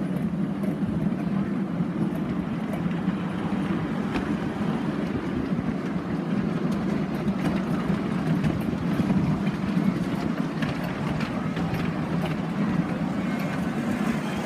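Steady rumble of a ride-on miniature railway train's cars rolling along the track, with scattered light clicks from the wheels on the rails.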